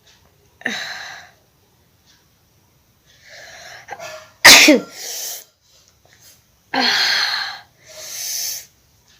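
A woman with a head cold sneezing several times. The loudest sneeze comes about halfway through, right after a drawn-in breath.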